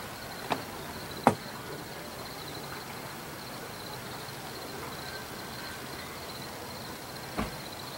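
Crickets trilling steadily in a high, pulsing chirp over a quiet background hum, with three sharp knocks: two close together about half a second and a second and a quarter in, the second the loudest, and one more near the end.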